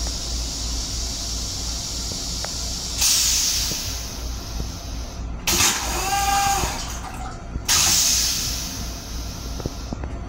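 Metro-North M7 railcar toilet flushing: rinse water sprays into the stainless steel bowl with a hiss about three seconds in and again near eight seconds, with a brief whining tone between the sprays. The train's steady low hum runs underneath.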